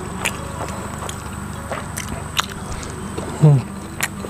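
Close-up eating sounds: a man chewing cooked bird meat and rice eaten by hand, with scattered wet mouth clicks and lip smacks. About three and a half seconds in there is a short 'mm' of enjoyment that falls in pitch.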